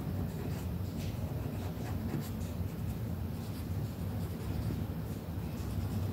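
Cotton swab rubbing powder blush onto a paper figure: light, irregular scratchy strokes on paper over a steady low hum.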